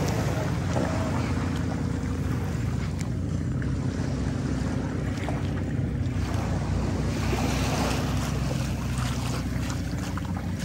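Boat engine running steadily, with wind and rushing water.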